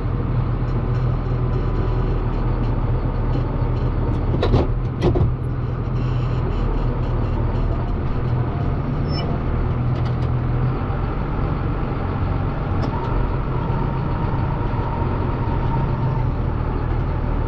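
Tractor diesel engine idling steadily, with two sharp clicks about four and a half and five seconds in.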